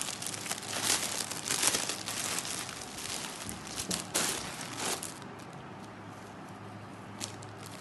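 Clear plastic packaging crinkling as it is handled, with the crinkling dying down about five seconds in.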